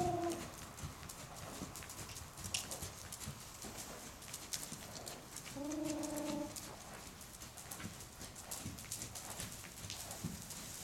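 Hoofbeats of a Hanoverian mare trotting and cantering loose on the dirt footing of an indoor arena, a steady run of soft thuds. A short held call sounds a little past halfway.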